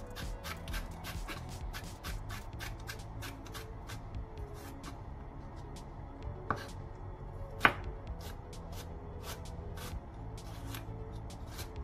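Chef's knife slicing carrot on a wooden cutting board: quick knocks of the blade through the carrot onto the board, several a second, thinning out for a few seconds midway, with one sharper knock in the pause, then fast chopping again near the end.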